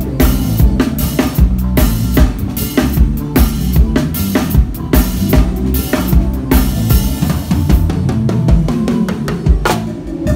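Drum kit played in time with a band, heard close from the drummer's seat: steady kick, snare and cymbal hits over a moving bass line. The hits thin out briefly near the end.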